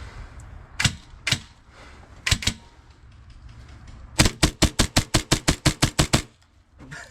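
HPA-powered airsoft pistol firing: two single shots about a second in, a quick pair a second later, then a fast string of about a dozen shots over two seconds.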